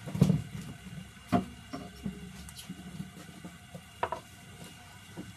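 A few sharp knocks and clatters of cookware and utensils, the loudest just after the start and two more later, over a low steady sizzle of egg cooking in a frying pan.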